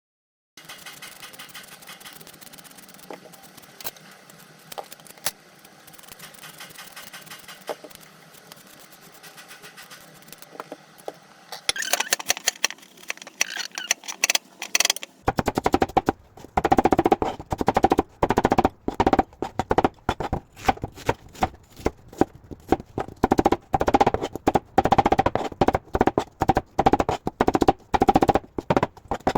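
Knife chopping pears into small pieces on a cutting board: fast, rapid knocks that start about halfway through and keep going, after a quieter first half.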